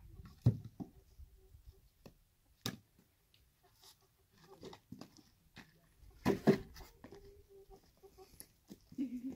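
Wooden knocks and scrapes as a plank door on a mud-walled chicken coop is unlatched and opened, the loudest knocks coming a little past halfway, with hens calling faintly from inside.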